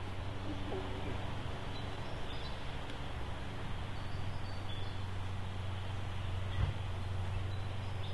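Outdoor park ambience: a steady low rumble with faint bird chirps now and then, and a single soft knock about six and a half seconds in.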